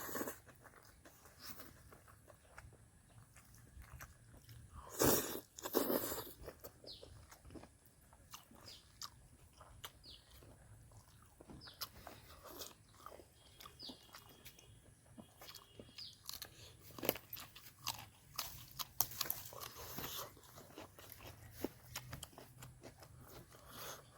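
A person eating close to the microphone: crunching and chewing food. There are two louder crunches about five and six seconds in, and a run of sharper clicks later on.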